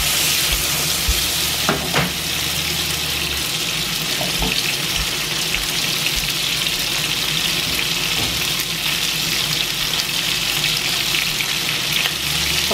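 Small green peppers sizzling steadily as they fry in hot oil in a nonstick pan, with a couple of sharp clicks about two seconds in.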